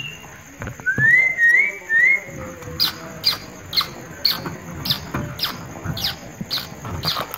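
Small caged birds calling: three short rising chirps about a second in, then a quick, even run of sharp high chirps, two or three a second, from about three seconds in.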